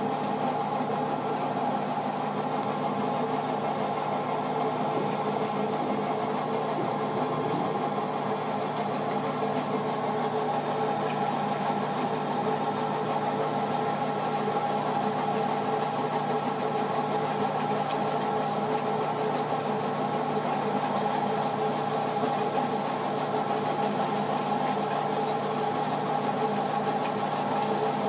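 A motor or engine running steadily, giving a constant hum with several fixed tones that never change.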